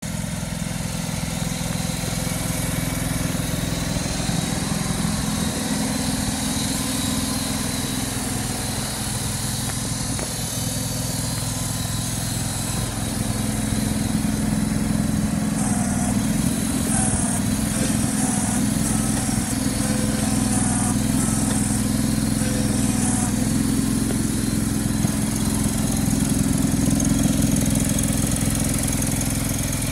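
John Deere 425 garden tractor's 20 HP liquid-cooled Kawasaki V-twin engine running steadily with the tractor standing still, a little louder in the second half.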